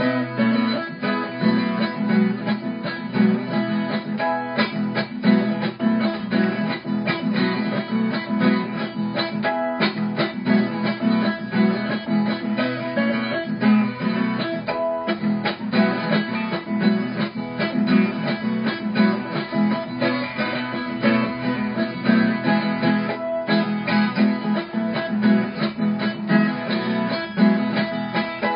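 Acoustic guitar played solo, a continuous run of picked notes mixed with strummed chords, with no singing.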